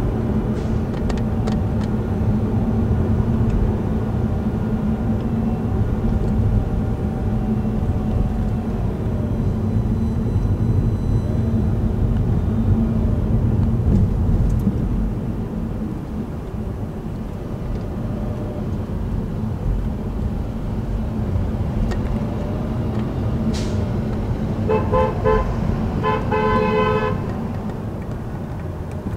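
Steady city traffic and engine rumble heard from a car in slow traffic, with a vehicle horn honking twice near the end.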